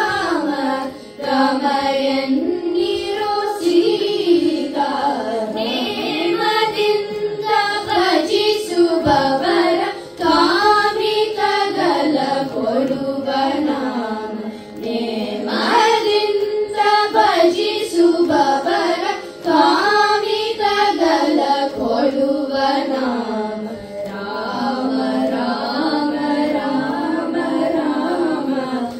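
A group of children singing a Carnatic devotional song in phrases, the melody rising and falling over a steady drone tone.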